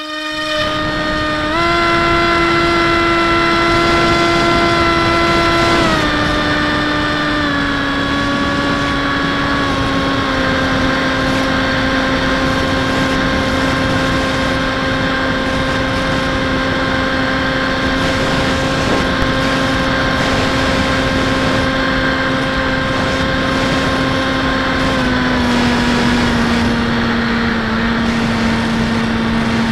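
Electric outrunner motor and 8x6 propeller of a Bixler 1.1 foam RC plane running in flight, heard from the onboard camera with wind rushing past. Its pitch steps up about two seconds in, then drops in several steps as the throttle is eased back.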